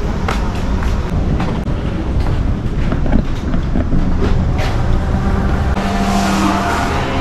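Footsteps at walking pace, about two a second, over a steady low rumble. About six seconds in, the sound changes to the airier hum of an indoor restaurant.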